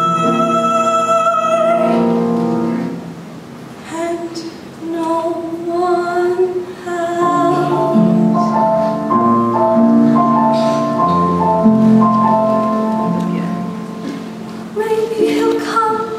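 Live singing with musical accompaniment from a school choral concert. A long held note ends about two and a half seconds in, and a new sung phrase begins a second or so later over the accompaniment.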